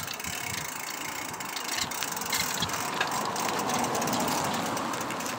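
Bicycle freewheel hub ticking rapidly as the bike coasts, over a steady rushing noise.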